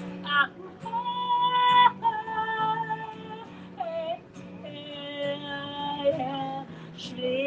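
A woman singing a slow song with long held notes, accompanying herself on acoustic guitar.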